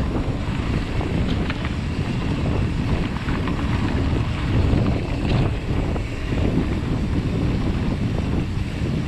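Wind buffeting the camera microphone on a moving mountain bike, over the steady rumble of knobby tyres rolling on a dirt trail, with a few light clicks from the bike.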